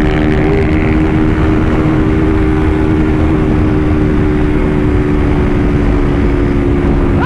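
Honda motorcycle engine with an aftermarket exhaust, held at steady high revs at full road speed. The pitch stays constant throughout, under heavy wind rush on the microphone.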